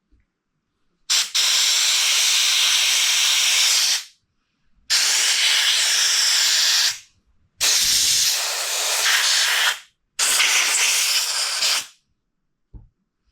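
Compressed air blown through the passages and vent tubes of a two-stroke dirt-bike carburettor in four long bursts of hiss, each a couple of seconds long, the first about a second in. This is a final blow-through to check that the jets, ports and vent tubes are clear of blockages.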